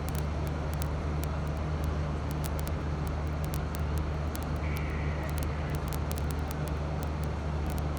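Distant fireworks crackling, many faint sharp cracks in quick succession, over a steady low outdoor rumble. No large bangs.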